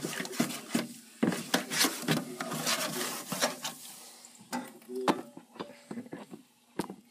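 Irregular knocks, clicks and rubbing from a red plastic small-engine shroud being picked up and handled in a parts-washer tank.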